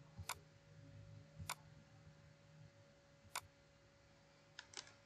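Faint computer mouse clicks: three single sharp clicks a second or two apart, then a quick cluster of lighter clicks near the end, over a faint steady hum.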